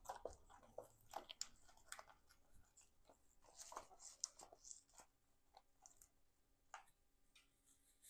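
Faint, irregular crunching and rustling of a moss pole packed with damp moss, handled and pushed into place by hand; the crackles thin out over the last couple of seconds.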